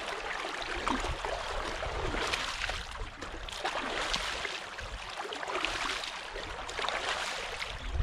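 Water splashing several times as a man scoops handfuls of canal water over his head and face, over the steady trickle of the flowing canal.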